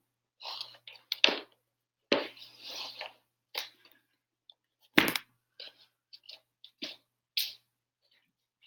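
Handling noise from the camera being moved and set down on the floor: rustling and a series of scattered sharp knocks and clicks, the loudest knock about five seconds in.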